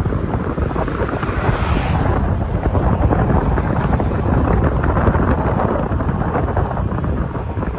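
Strong wind buffeting the microphone: a loud, steady rush of noise, heaviest in the low rumble, with no pauses.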